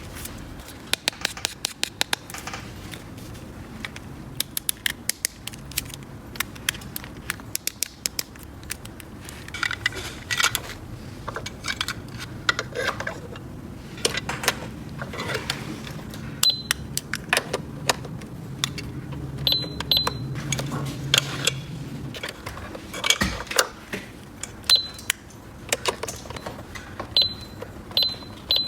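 Small plastic toy pieces clicking and clattering as they are handled and fitted together. Several short high beeps come in during the second half.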